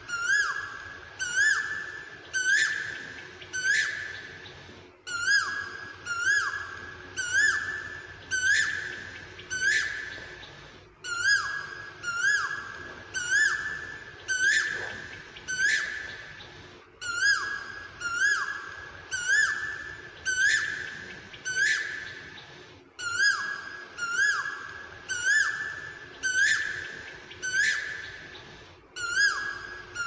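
Asian koel calling: a loud whistled call repeated about once a second, in runs of five or six calls with a short pause between runs.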